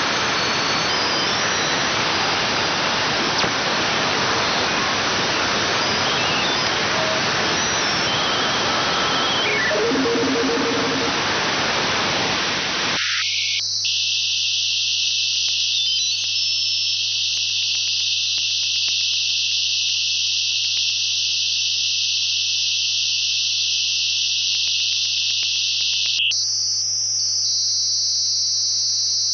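AM radio being tuned: dense static hiss with short whistling tones drifting in and out. About thirteen seconds in it cuts abruptly to a thin, high hiss over a steady low hum.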